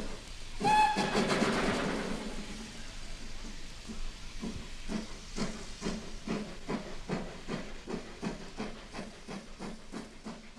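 Steam locomotive: a short whistle blast just under a second in, a loud hiss of escaping steam, then exhaust chuffs that quicken from about two to three a second as the engine gets under way.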